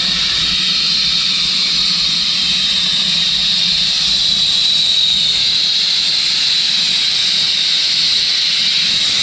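Steam tank locomotive standing at a station platform, letting off steam in a loud, steady hiss.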